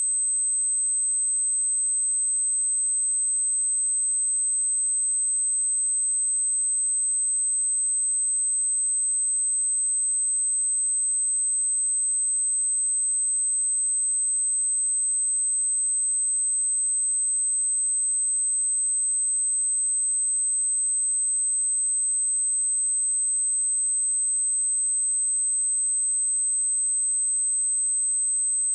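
A pure 8208 Hz sine-wave test tone, held steady at a constant level: a single high-pitched whine with nothing else.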